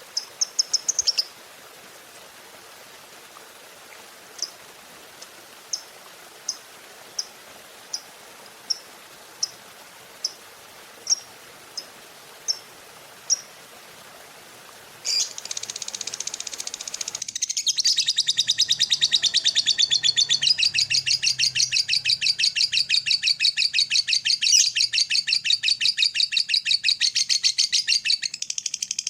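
Lovebird calling: single sharp, high chirps spaced a little under a second apart, then about halfway it breaks into a long, very fast chattering trill, the 'ngekek' sought by lovebird keepers.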